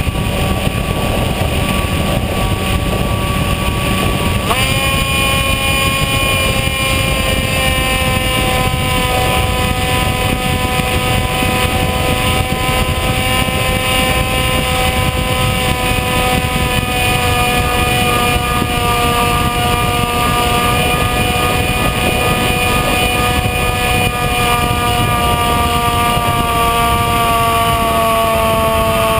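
Bixler model plane's brushless electric motor and propeller whining, heard from the onboard camera with heavy wind rush on the microphone. The whine jumps up in pitch about four seconds in as the motor speeds up, then slowly sags, stepping down again near the end.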